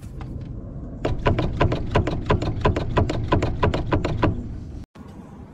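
Rapid, even clatter of about seven knocks a second over a low rumble, from a semi truck's driveline with a bad carrier bearing. It stops suddenly near the end.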